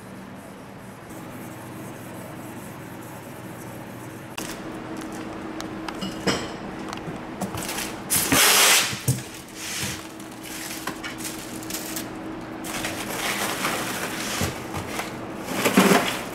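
A styrofoam fish box being opened and a whole salmon lifted off its bed of ice: scattered clicks and knocks, then scraping, rubbing and rustling of the polystyrene and ice, loudest about halfway through and again near the end, over a steady low hum.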